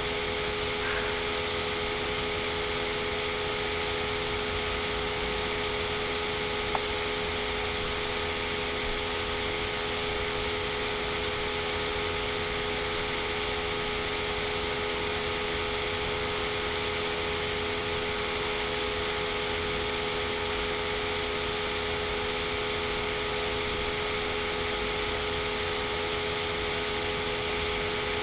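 Steady hum and hiss with a few constant tones, unchanging throughout, with a single sharp click about seven seconds in.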